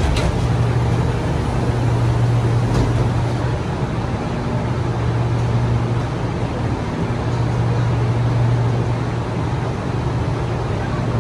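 Metro train carriage noise as the train slows and stands at a station platform: a steady rumble with a low hum that comes and goes, opening with one sharp knock.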